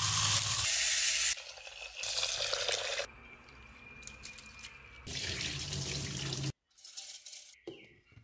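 Rice being washed in water by hand: splashing and sloshing in a few separate stretches of a second or so, each starting and stopping abruptly. A few short, faint knocks near the end.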